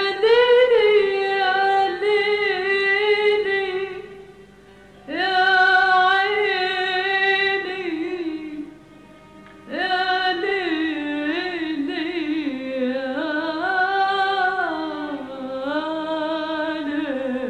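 A woman singing an Arabic song in three long phrases of held, wavering notes and ornamented turns, with short pauses between them over a faint steady low note.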